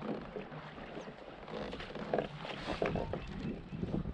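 A hooked bass splashing at the surface beside a kayak as it is reeled in and netted, with scattered clicks and knocks of tackle and net against the hull. The splashing is busiest in the middle.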